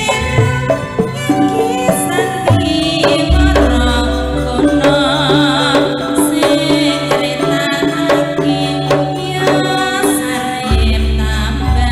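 Live Javanese gamelan (karawitan) playing tayub dance music over a sound system: steady metallophone tones, kendang drum strokes and a female singer's wavering voice. A deep low note comes in about three seconds in and holds, then returns near the end.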